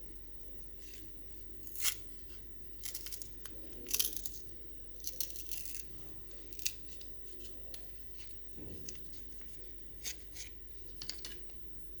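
Packaging of a denture-style cleaning tablet being torn open: a series of short, crisp tearing rasps, with a pause partway through.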